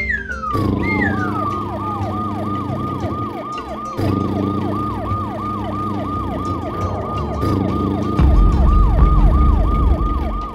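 Cartoon siren sound effect: a fast wailing tone that falls over and over, about four times a second, over steady low held tones. Near the start, two long falling whistle-like glides sweep down through it, and the low part grows louder from about 8 s to near the end.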